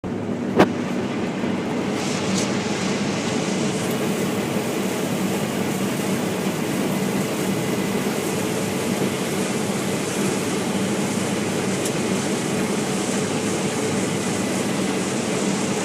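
Case IH Axial-Flow 9230 combine harvester running steadily under load while harvesting wheat, with a steady hum, and one sharp click about half a second in.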